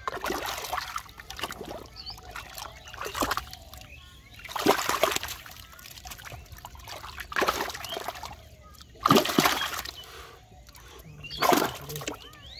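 A hand splashing and sloshing muddy water in a shallow mud basin, in about seven wet scoops a second or two apart.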